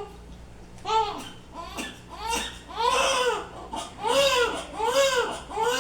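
Newborn baby crying in a run of short, high-pitched wails that start about a second in, each rising and falling in pitch, repeating about once or twice a second and growing louder.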